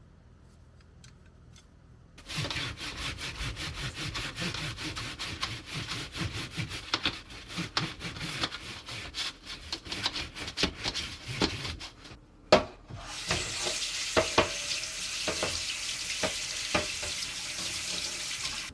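Rapid abrasive scrubbing strokes on a bicycle part to clean off grime and rust. It starts about two seconds in, pauses briefly with a sharp knock about twelve seconds in, then resumes with a harsher hiss.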